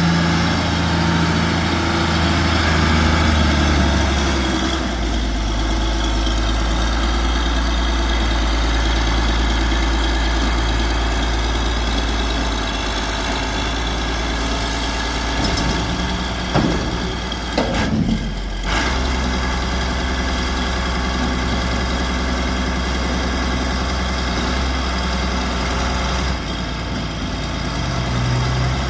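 Diesel engine of a 1997 John Deere 710D loader backhoe running steadily. Its note drops about five seconds in and rises again near the end, with a few short knocks partway through.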